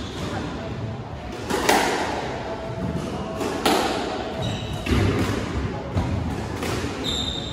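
Squash rally: the ball is struck by rackets and smacks against the court walls with sharp hits about every one to two seconds, and rubber-soled shoes squeak briefly on the wooden floor.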